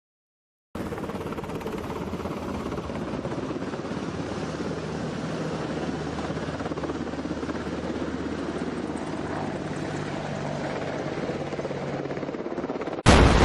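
Helicopter rotor and turbine noise, a steady fast chop that starts suddenly about a second in. A loud explosion sound effect bursts in at the very end.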